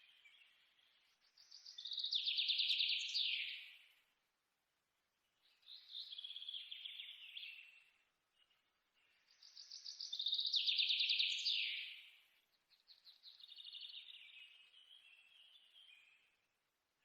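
A bird singing four rapid trilled phrases, one about every four seconds. Each swells over a couple of seconds and ends in a falling sweep, and louder and softer phrases alternate.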